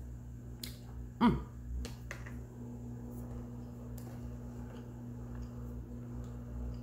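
A person eating: faint clicks and mouth noises while chewing. About a second in comes one short, falling-pitched sound from the throat, the loudest thing here. A steady low hum runs underneath.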